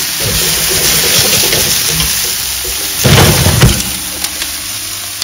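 Vegetables coated in rendered pork fat sizzling on a hot sheet tray, a steady hiss, with a louder metal scrape and clatter about three seconds in as the tray slides onto the oven rack.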